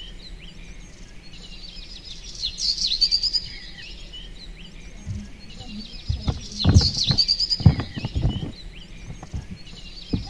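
Small birds chirping, the same short burst of high chirps coming back about every four seconds. From about six seconds in there is a run of soft knocks and rustles from handling, which are the loudest sounds.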